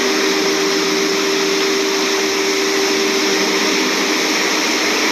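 Compact street sweeper running at work: a steady whine from its suction fan over a loud rushing hiss, without change.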